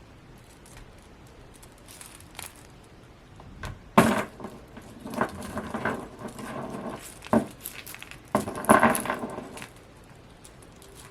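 Hands handling a Funko Pocket Pop! vinyl keychain figure and its packaging: a sharp knock about four seconds in, then clicking and rustling in a few bursts, with another sharp tap and a last burst near the end.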